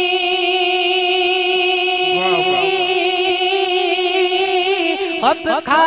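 A man's voice singing a naat, holding one long drawn-out note, then breaking into quick ornamental runs about five seconds in.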